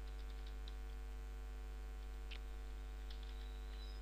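Steady electrical mains hum with several pitched lines, and a few faint computer keyboard key clicks, the clearest about two and a third seconds in.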